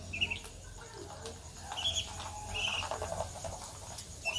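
Ducklings peeping: a few short, high calls, a second or so apart.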